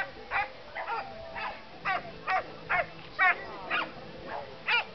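Nova Scotia duck tolling retriever barking excitedly and without pause while running an agility course: about a dozen short, high-pitched barks, two or three a second, each dropping in pitch.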